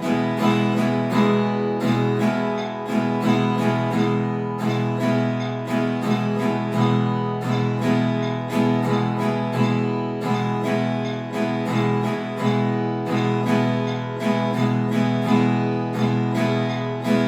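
Acoustic guitar strummed in a steady, even rhythm, chords ringing under repeated strokes.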